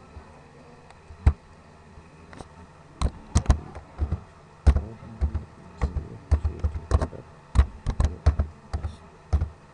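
Typing on a computer keyboard: a few separate keystrokes at first, then a quicker, irregular run of key clicks from about three seconds in.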